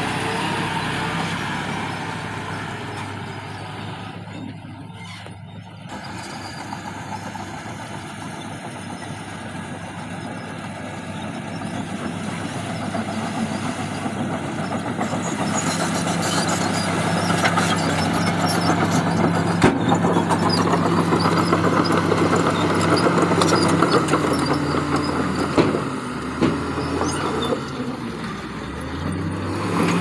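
Diesel dump truck engine running as the truck works over loose soil. From about halfway through it runs louder, at a higher and steady speed, while the tipper bed is raised to dump its load.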